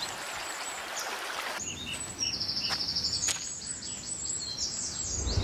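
Small birds chirping, with a fast trill of quick even notes about halfway through, over a steady outdoor background hiss that shifts in character about one and a half seconds in.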